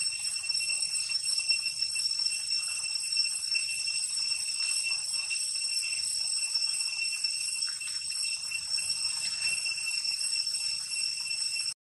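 Steady high-pitched drone of insects, one continuous shrill tone with overtones that does not vary, over a faint low rumble.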